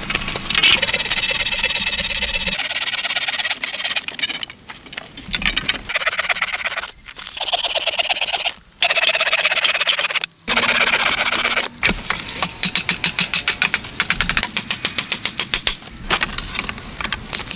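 Hand saw cutting through a wooden pole: quick, even back-and-forth strokes that break off abruptly several times and start again.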